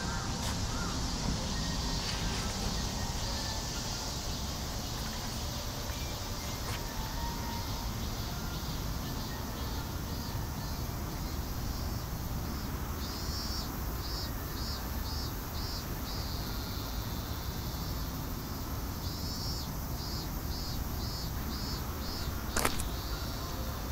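Steady outdoor background noise. From about ten seconds in, a repeated high chirping comes and goes, about two or three chirps a second, and a sharp click sounds near the end.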